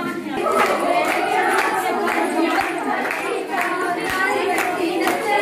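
A group of women singing together with steady, rhythmic hand-clapping, in the manner of a Punjabi gidda dance.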